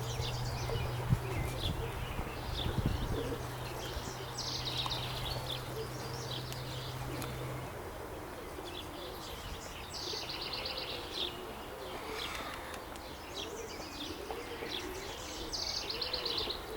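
Domestic pigeons cooing, with a small songbird repeating a short high trilled phrase every five seconds or so. A low steady hum runs under the first half and stops about eight seconds in.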